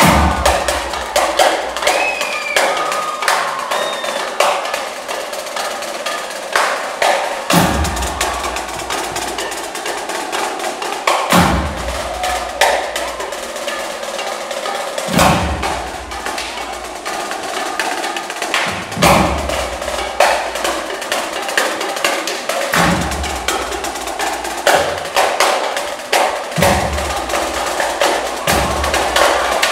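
High school marching drumline playing a cadence: rapid, crisp drum strokes with heavy low drum hits that recur about every four seconds, echoing in a gymnasium.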